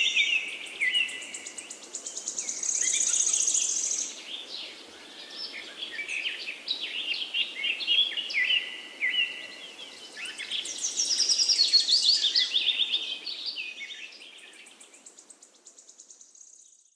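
Songbirds singing: dense, overlapping chirps and quick trills over a faint steady background hiss, fading away over the last few seconds.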